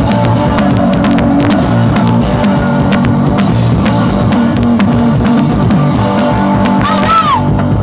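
Live punk blues rock from an electric guitar and a drum kit, played loud, with steady drum hits under the guitar. About seven seconds in, a high note bends up and back down.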